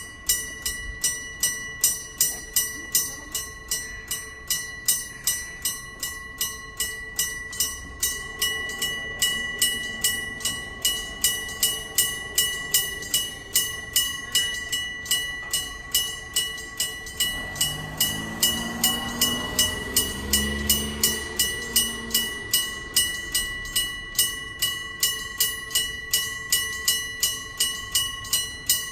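Electric bell of a level crossing striking steadily, about two and a half strokes a second, each stroke ringing on. About two-thirds of the way through, a train passes over the crossing beneath the bell: a rising and fading rumble with a motor whine.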